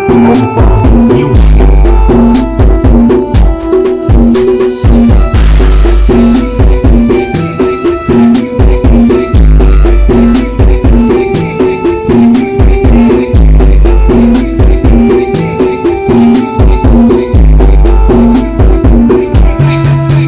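Loud DJ dance music played through a large carnival sound system, with heavy deep-bass pulses and busy percussion on a steady beat.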